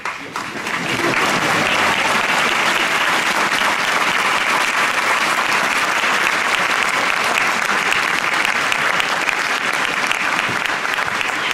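Crowd applauding: steady, dense clapping that builds up over the first second and keeps going.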